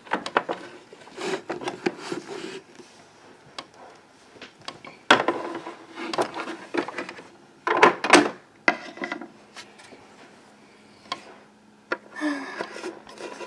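Plastic Littlest Pet Shop figurines being handled and tapped against a plastic toy dollhouse floor: several bunches of light clicks, knocks and rubbing, about a second in, about five seconds in and around eight seconds in, with a quieter stretch after.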